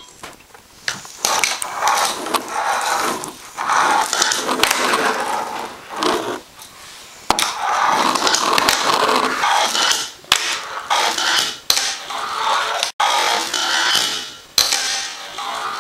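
A Berlinwood wooden fingerboard rolling and scraping over a chipboard ramp and wooden tabletop, with sharp clacks of the deck popping and landing. It goes in short runs broken by brief pauses.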